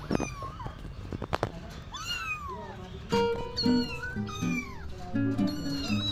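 Young kittens meowing over and over, thin high mews that fall in pitch. A few sharp clicks sound in the first second and a half, and background music comes in about three seconds in.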